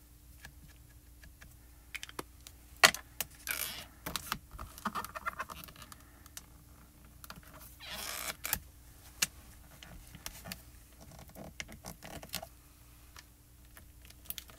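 Light clicks and taps of hands handling clear acrylic stamps, an ink pad and a hinged stamp-positioning tool, with two short scuffing sounds about three and a half and eight seconds in, over a faint steady hum.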